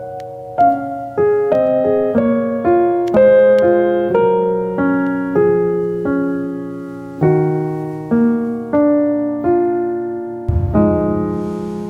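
Gentle solo piano music: single notes and soft chords struck at a slow, even pace, each ringing and fading, with a deeper chord coming in near the end.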